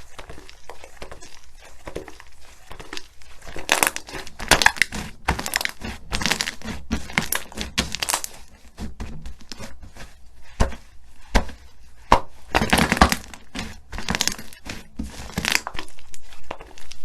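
Slime being squeezed and worked by hand, giving irregular runs of sharp crackling clicks and squelches. The clicks come thickest about four seconds in and again around twelve to thirteen seconds.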